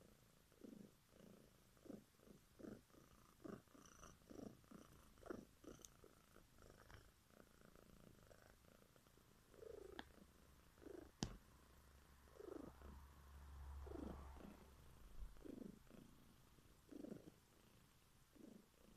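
Domestic cat purring faintly close to the microphone, the purr swelling and fading with each breath in a steady rhythm that slows a little later on. A single sharp click sounds about eleven seconds in.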